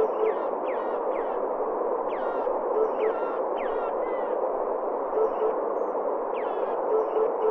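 Eurasian hoopoe singing: groups of two or three short, low 'oop' notes, repeated four times. Other birds' quick downward whistles and a steady background hiss run underneath.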